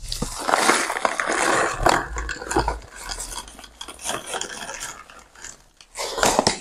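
Cactus and succulent potting mix pouring from a kraft paper bag into a small plastic pot: gritty grains rattling and the paper bag crinkling, in uneven spurts, with a louder rustle near the end.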